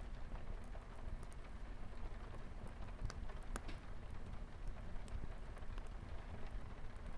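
Light rain on a window, a steady hiss, mixed with a fireplace crackling in scattered sharp clicks and pops.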